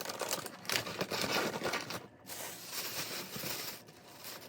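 Gift wrapping crinkling and rustling as it is handled, in a few stretches with a short pause about two seconds in.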